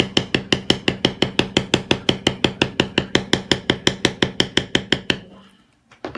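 Rapid, even taps of a mallet on a leather stamping tool, about five strikes a second, stopping about five seconds in; a single knock follows near the end.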